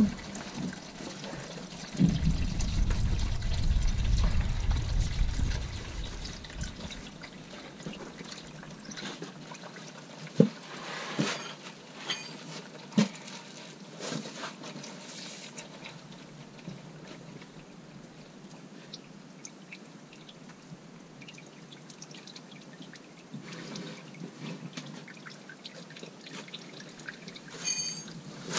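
Warm engine oil draining from the oil pan of a 6.0-litre Vortec V8, a steady pouring trickle. A low rumble for a few seconds near the start, and a few sharp clicks in the middle.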